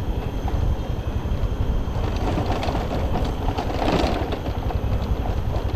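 Motor scooter running on the road, a steady low rumble with a louder stretch in the middle.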